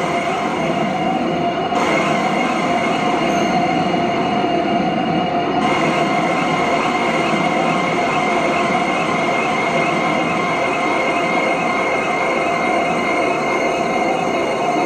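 Electronic soundscape from a contemporary dance score: a dense, steady noise drone with sustained whining tones above it, unchanging in level.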